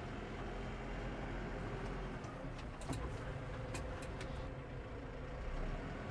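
New Holland T5.140 tractor's diesel engine running steadily, heard from inside the cab, with a few light clicks around the middle.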